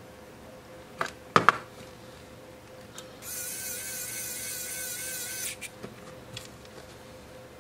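A couple of sharp clicks about a second in, then a Wowstick 1F+ precision electric screwdriver runs for about two seconds: a high, slightly wavering whine from its small geared motor as it drives a 4-40 machine screw back into the case. A few faint clicks follow.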